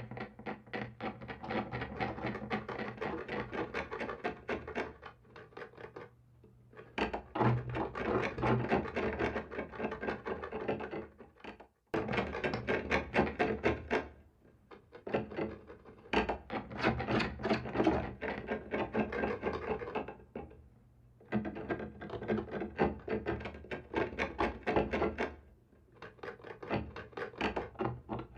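Scratching on a wall: rapid rasping strokes in runs of a few seconds, broken by short pauses.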